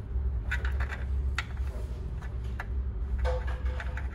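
A handful of light, irregular clicks and ticks from small parts and tools being handled, over a steady low hum.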